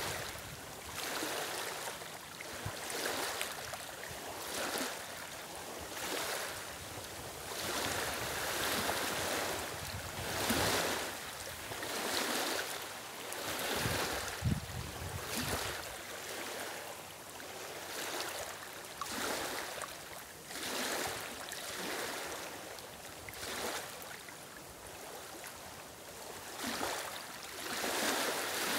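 Small lake waves lapping and washing onto a stony, reed-lined shore, swelling in every second or two.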